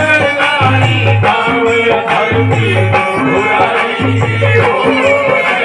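Indian devotional folk music, with a hand-drum beat and a deep bass stroke recurring about every second and a half under continuous melodic instruments.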